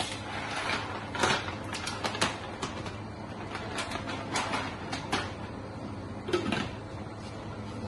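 Scattered light clicks and knocks of espresso-bar equipment being handled at the counter, at irregular intervals over a faint low steady hum.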